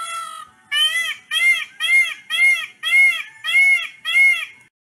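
Peacock calling: one longer call, then a quick run of seven short, loud calls, each rising and falling in pitch, about 0.6 s apart, cutting off abruptly near the end.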